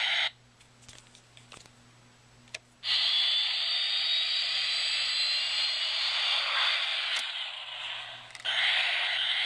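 Electronic sound effect from the Hess 2010 toy jet's small speaker: a rushing, hissing jet-engine noise with a thin whistle in it. It cuts out just after the start, a click comes, and about three seconds in it starts again. It dips briefly near the end, then comes back.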